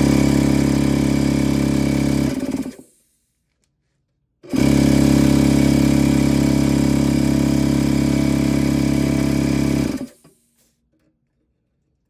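Electric air compressor's motor and pump running steadily. It cuts off suddenly about three seconds in, starts again about a second and a half later, runs for about five and a half seconds, then stops again.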